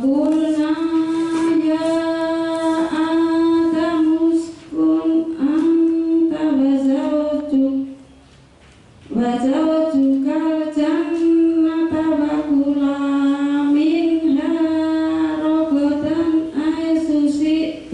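A woman reciting the Quran in a melodic chant, with long held and slowly gliding notes. She recites in two long phrases, breaking for a breath about eight seconds in.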